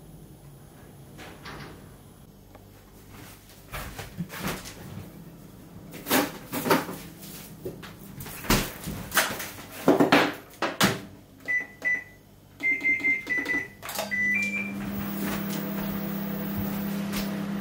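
A few knocks and clatters of handling, then a series of short electronic beeps as the Hitachi microwave oven's buttons are pressed. Soon after the beeps the oven starts up and runs with a steady low hum.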